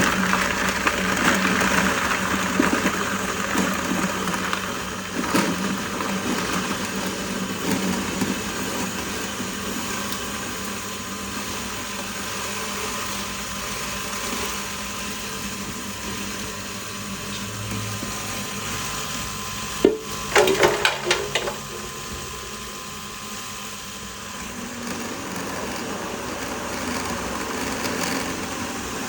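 Animal feed grinder running steadily, with a constant hum under a rough grinding noise that is loudest in the first several seconds. A quick burst of sharp knocks comes about twenty seconds in.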